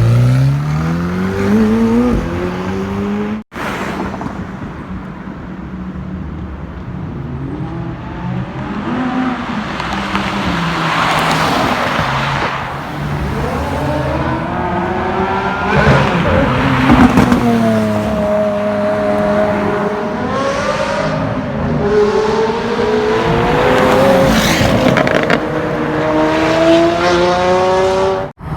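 Supercar engines accelerating hard and revving, the engine note climbing through the gears again and again with drops between shifts and a few held notes. A brief cut about three and a half seconds in switches to another car or run.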